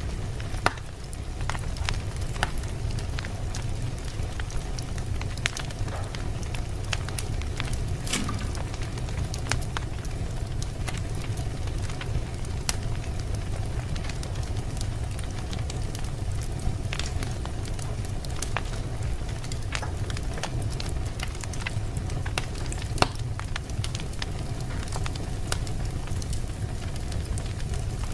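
Fire burning in a fireplace: irregular sharp crackles and pops over a steady low rumble of the flames.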